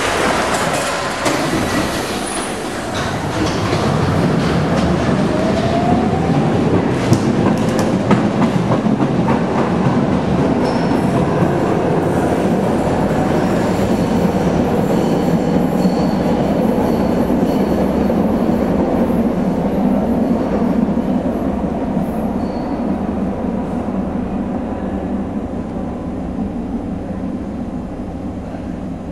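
Budapest M1 metro train pulling out of the station and running off into the tunnel: a steady rumble of wheels on rail, with a few faint high wheel squeals. It fades gradually near the end as the train recedes.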